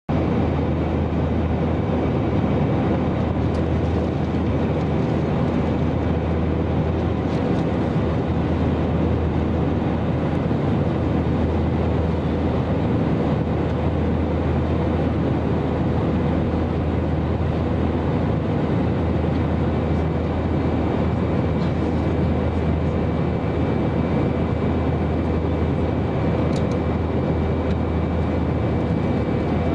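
Airliner cabin noise in cruise flight: the steady drone of the engines and rushing air, heavy at the low end, with a faint thin whine held on top.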